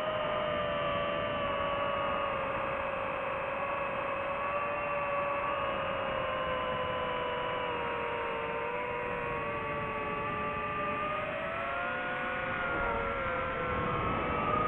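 DJI FPV drone's four motors and propellers whining in flight, several close pitches drifting up and down and crossing as the throttle changes.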